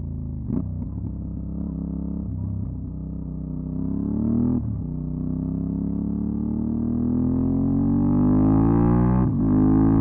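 Aprilia Dorsoduro 750's V-twin engine through a LeoVince SBK aftermarket exhaust, pulling under acceleration. The pitch climbs steadily and drops sharply at each upshift, about half a second, four and a half seconds and nine seconds in.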